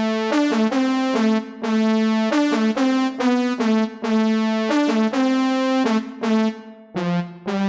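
Roland D-05 synthesizer, a recreation of the Roland D-50's linear synthesis that pairs sampled attacks with synthesized sustains, playing a bright electric-piano-like keyboard patch. It plays a line of separate notes with sharp attacks, about two a second, over a lower part.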